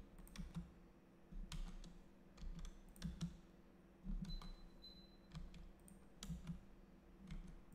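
Scattered, irregular clicks and taps of a computer mouse and keyboard, with a few soft low thuds between them.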